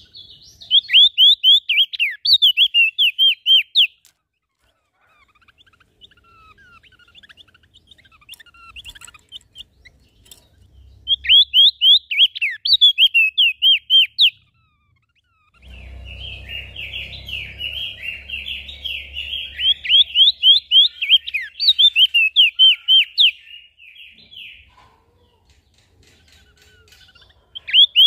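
Small songbirds singing: loud bursts of rapid, sharp, down-slurred notes about a second in, again around eleven seconds and from about nineteen seconds, with softer twittering between. From about sixteen seconds a dense chatter of overlapping calls joins in, over a low rumble.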